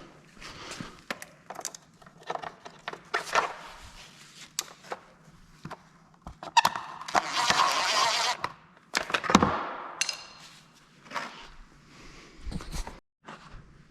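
Work noises from handling metal hardware and tools: scattered clinks and knocks, with a harsh, dense burst of about two seconds near the middle and a few heavier thuds later.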